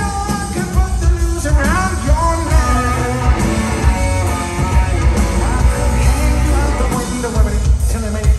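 Rock band playing live: electric guitars, bass and drums with a sung vocal line, heard from the audience in a large arena.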